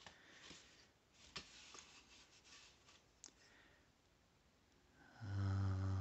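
Faint clicks of small pencils being handled, then near the end a man's low, steady hum lasting just under a second.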